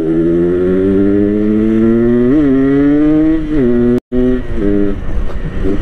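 Yamaha RX King's 135 cc single-cylinder two-stroke engine, tuned for the rumbling 'ngorok' sound, pulling under throttle with its pitch rising steadily for about three and a half seconds. The pitch then drops in two steps, as at gear changes or easing off.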